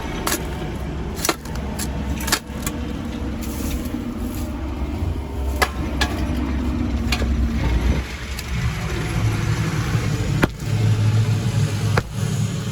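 Heavy machine's engine running steadily, with several sharp clanks and knocks as concrete is broken up and moved. The engine note shifts about two-thirds of the way through.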